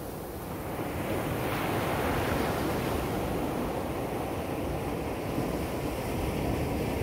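Sea surf breaking and washing up on a beach, the wash swelling about a second in and then rushing on steadily, with wind buffeting the microphone.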